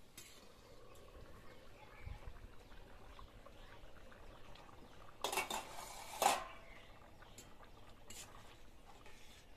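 A metal pan lid clattering as it is lifted off a cooking pan and set down on another pot, ending in one loud clank. Afterwards a few light taps of a spatula stirring in the pan.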